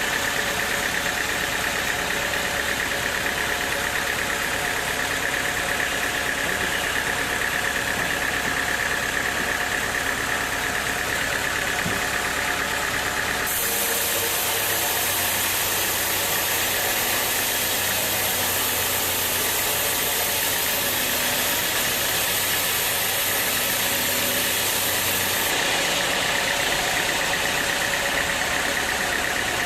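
Sawmill machinery running steadily, with a constant mechanical hum and a high whine. A little past the middle a sharper high hiss takes over for about twelve seconds, then the original running sound comes back.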